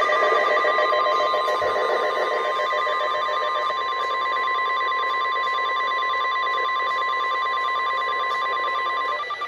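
NOAA Weather Radio warning alarm tone: a steady beep, about 1050 Hz, held for about nine seconds and cut off near the end, signalling that a warning broadcast follows. A second, pulsing tone from the other receiver overlaps it, strongest in the first few seconds.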